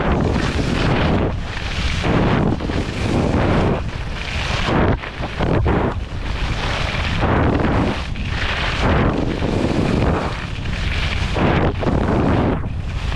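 Skis carving turns on firm groomed snow, the edges scraping in a swell with each turn roughly once a second, over steady wind rushing across the microphone.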